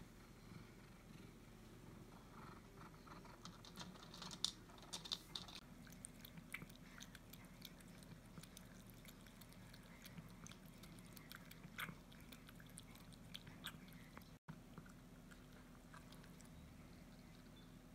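Cat lapping water from a glass bowl: faint, quick wet clicks of the tongue that start a few seconds in.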